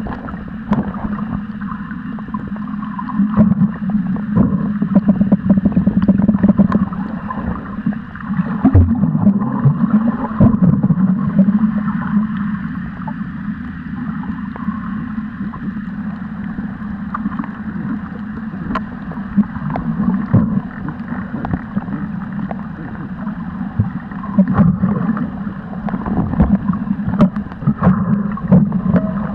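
Muffled underwater noise picked up through a camera's waterproof housing: an uneven low rush of moving water, swelling and easing, with scattered small clicks and knocks.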